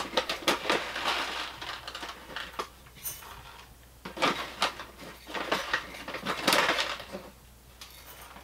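Dry whole brown rice grains poured from a bag into the metal hopper of a hand-crank grain mill, rattling in irregular bursts.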